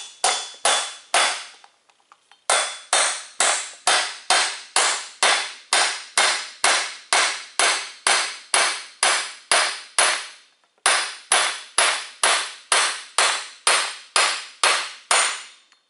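Steady hammer blows on an aluminum bearing driver, about two a second with two short pauses, driving a steel tapered bearing race into its seat in an aluminum wheel hub.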